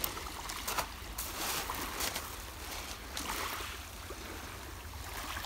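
Small waves of a calm sea lapping on a pebble shore, in several soft washes a second or so apart, over a steady low rumble.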